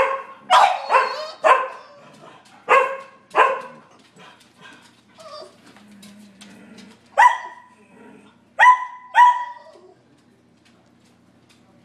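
A Sheltie, a Collie and a French bulldog barking at a squirrel outside the window. A quick run of barks comes in the first four seconds, then fainter ones. Three sharper, higher-pitched barks follow about seven to nine seconds in.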